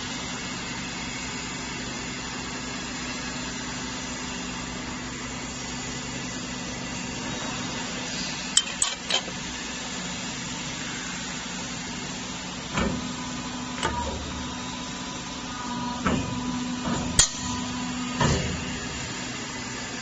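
A CNC sheet-metal corner forming machine running with a steady hum. In the second half come a handful of sharp metallic clanks and clicks as a sheet-metal panel is fed in and its corner is formed.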